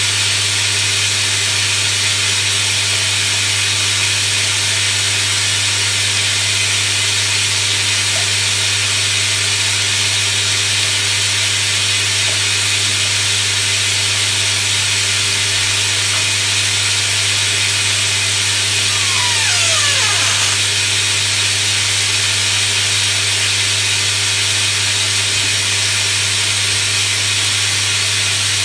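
Hoover Electronic A3172 washing machine running, its motor giving a steady whine over a low hum. A short falling squeal-like tone sounds about twenty seconds in.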